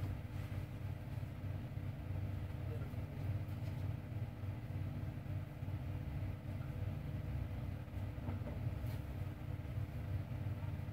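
Steady low background rumble with a faint constant hum and no distinct events.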